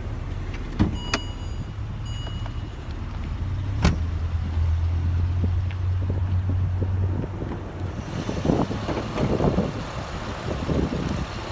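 Holden Commodore SS ute's V8 idling steadily, heard from in or at the car. There are a few sharp clicks and two brief electronic chimes in the first few seconds, and louder, busier noise in the last few seconds.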